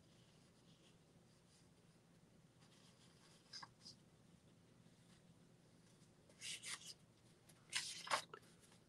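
Near silence, broken by a few faint, short papery rustles, one a little past the middle and a few more near the end: book pages being handled and turned.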